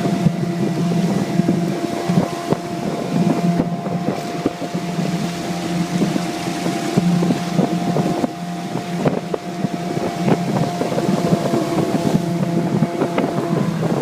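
15-horsepower Mariner outboard motor running at a steady speed on a jon boat, with scattered knocks and clicks and wind on the microphone.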